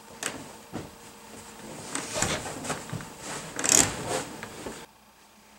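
Fabric rustling and soft knocks as a person lifts a cushion and lies down on a fabric couch, with the loudest rustle about four seconds in.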